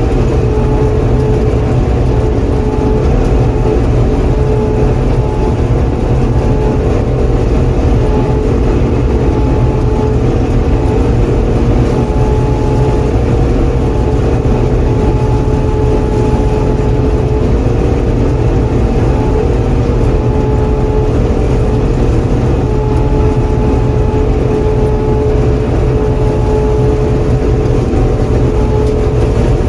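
John Deere 4400 combine running steadily under load while harvesting soybeans: a loud, even engine drone with a steady hum held over it.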